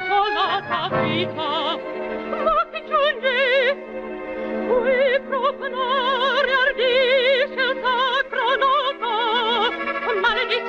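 Operatic soprano singing with a wide, fast vibrato on long held notes over instrumental accompaniment.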